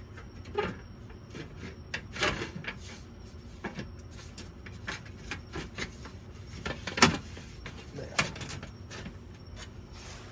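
Honda Accord's large plastic engine undercover being handled and slid into its tabs, with scattered plastic clicks, knocks and scrapes; the loudest knock comes about seven seconds in.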